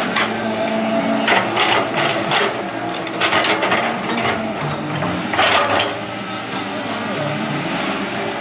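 Caterpillar 312D hydraulic excavator digging soil: its diesel engine runs steadily while the bucket and arm give several sharp clanks and scrapes.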